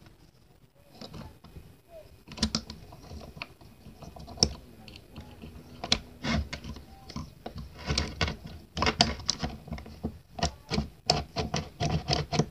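Irregular clicking and clacking of small metal and plastic parts being handled and fitted together as a pneumatic nail gun is reassembled by hand. It is sparse at first and grows busier after about two seconds.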